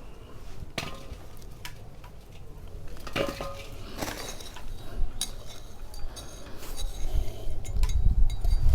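Freshly dug potatoes and soil being handled and sorted by hand: scattered clicks and clinks, some with a brief ring like a metal dish, and a low rumble of handling noise toward the end.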